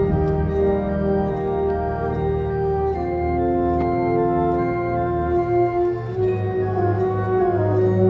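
Military wind band of saxophones, clarinets and brass playing slow, sustained chords that change about every three seconds.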